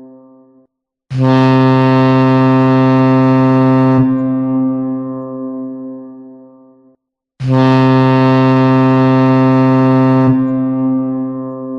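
Ship's horn sounding two long, low blasts, each held steady for about three seconds and then dying away over the next few seconds. The second starts about six seconds after the first, and the tail of an earlier blast fades out at the very start.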